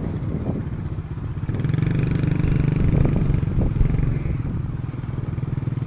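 Motorcycle engine running close by, growing louder for a couple of seconds in the middle and then easing off.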